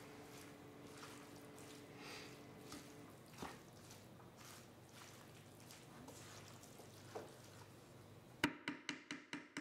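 Faint soft stirring of moist spaghetti squash, chickpeas and spinach with a wooden spoon in a stainless steel skillet, with a few light knocks. A quick run of sharp taps follows near the end.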